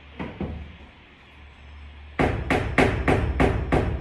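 Hammer driving a nail into a wooden door: two light taps to set the nail, then about halfway through a steady run of about six hard strikes, roughly three a second.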